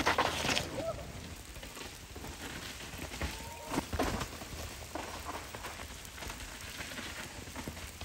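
Mountain bike tyres crunching and skidding over loose dirt on a steep downhill trail, a hissy noise that is loudest in the first half second, with a few sharp knocks as the bikes go over bumps and roots.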